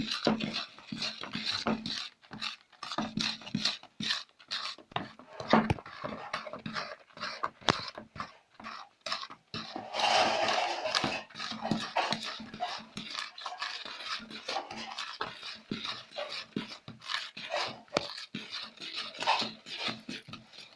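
Butter, sugar and egg being creamed in a bowl: a steady run of quick, rhythmic beating strokes, a few a second, with a louder stretch about halfway through.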